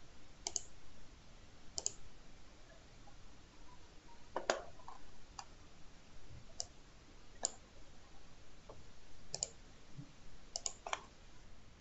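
Scattered, unevenly spaced clicks of a computer mouse and keyboard, about ten in all, the loudest about four and a half seconds in.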